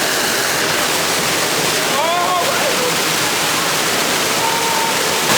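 Waterfall rushing steadily: a dense, even noise of falling water that stays loud throughout. Faint voices come through it around two seconds in.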